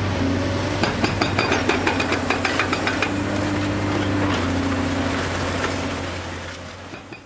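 Diesel engines of hydraulic excavators running under load, with a quick run of sharp knocks, about five a second, from concrete being broken up between about one and three seconds in. The sound fades out near the end.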